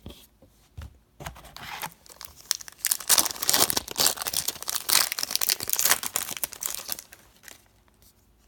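A trading card pack's wrapper being torn open and crinkled, crackling for about six seconds, loudest in the middle.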